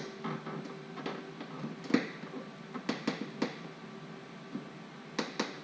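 Irregular clicks and knocks of hands handling plastic light housings and trim on a car body: about eight sharp taps, the loudest about two seconds in, a quick cluster around three seconds and two more near the end, over a faint steady hum.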